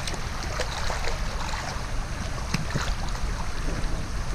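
Water sloshing and splashing around a person moving in shallow water in clothes and boots, with scattered small splashes.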